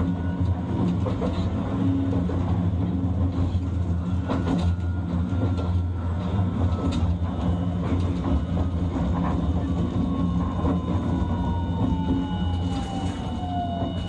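Hiroshima Electric Railway 1000-series (Green Mover LEX) low-floor tram running, with a steady rumble of wheels on rail and occasional clicks. The whine of its Toyo Denki IGBT inverter falls steadily in pitch over the last few seconds as the tram slows.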